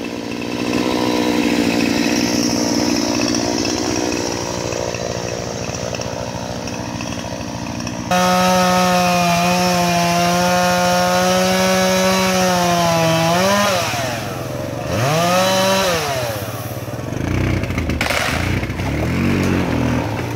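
Gas chainsaw felling a tree. It runs steadily for the first several seconds, then is opened up to full throttle about eight seconds in and held there while cutting. Its speed drops and rises twice around the middle, then falls back lower near the end.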